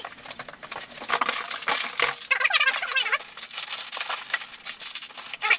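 A cardboard shipping box being packed with foam and its flaps worked: a dense run of rustles, scrapes and short squeaks.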